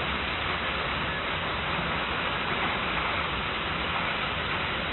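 Waterfall rushing steadily into its plunge pool: an even hiss with no breaks or changes.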